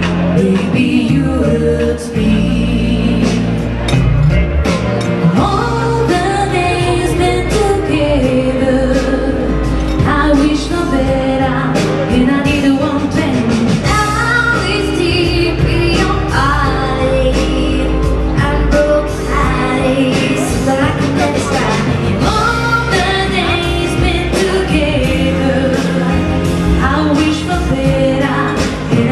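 A song: singing voices over instrumental backing, continuing without a break.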